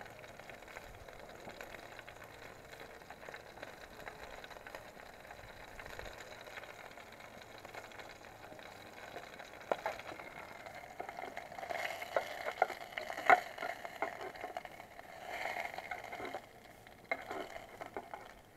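Food sizzling steadily in an aluminium mess tin on a titanium alcohol stove. From about halfway through, a metal knife clicks and scrapes against the tin, with several sharp taps and clatters, as the tin is worked and then lifted off the burner.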